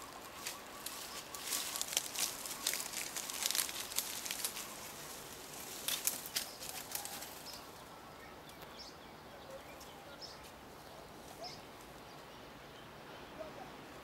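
Leafy branches and dry undergrowth rustling and crackling in quick, irregular clicks through the first half. It then fades to a quiet outdoor hiss.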